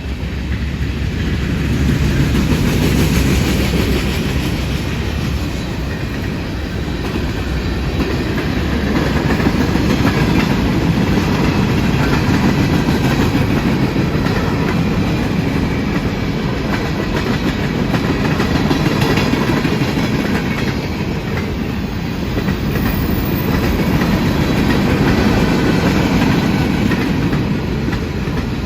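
Cars of a northbound CSX train passing at speed: steel wheels clicking over the rail joints in a continuous rumble that swells and eases.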